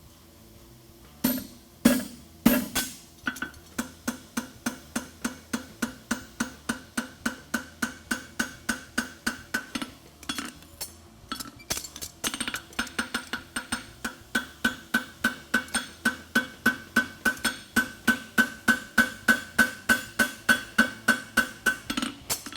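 Farrier's hammer striking a steel horseshoe on an anvil while forging it: a few heavy single blows, then a steady run of ringing strikes at about three a second, with a short break a little after the middle.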